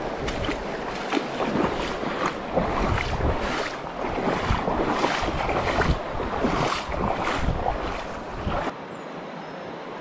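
Shallow river water splashing and sloshing close to the microphone, with wind buffeting it in irregular gusts. Near the end this gives way to a quieter, steadier rush of water.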